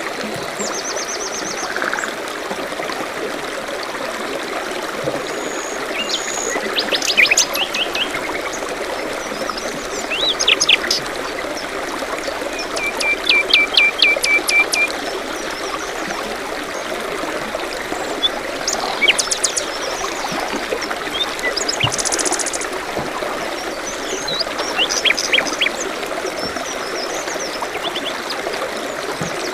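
A stream or brook running steadily, with songbirds calling over it in short chirps and trills; near the middle one bird gives a quick run of about eight repeated notes.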